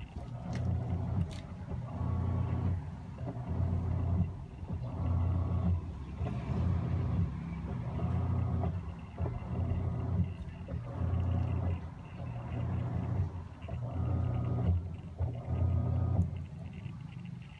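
Samsung WA70H4400SS top-load washing machine running after power-on, giving a low electric hum in regular pulses: about a second on, a short gap, repeating roughly every second and a half. Its control board is working again after the power supply repair.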